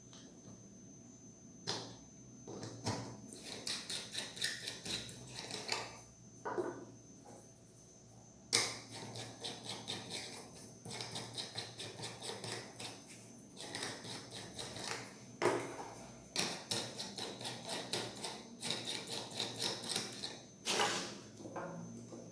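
An LED bulb's threaded screw base turning in a plastic lamp socket: repeated runs of quick clicking and grating, several clicks a second, broken by a few sharper knocks.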